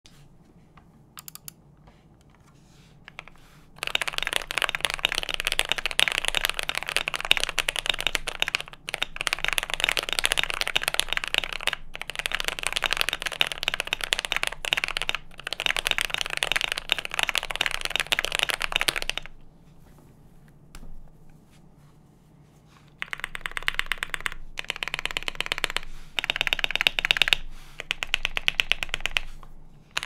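Fast typing on a KBD67 Lite mechanical keyboard with Hippo switches lubed with Krytox 205g0, POM keycaps and a PC plate: a dense, rapid run of keystroke clacks. A few single keystrokes come first, then continuous typing starts about 4 s in and stops around 19 s; after a pause, typing resumes in short runs from about 23 s.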